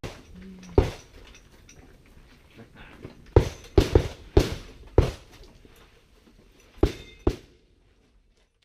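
Shotgun shots fired in an irregular string. There is one report about a second in, a quick run of five between about three and five seconds, and two more near the end, each sharp and loud. The audio cuts off abruptly just before the end.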